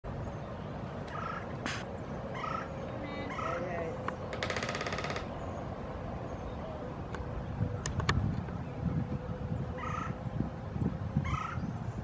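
A woodpecker drumming: a rapid, even roll of beak strikes on a metal roof, lasting under a second, about four seconds in. A few single knocks follow later. Short bird calls repeat several times before and after.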